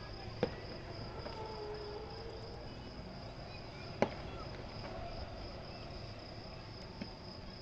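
Single firecracker bangs going off a few seconds apart, three in all, over a steady high-pitched chirring like crickets.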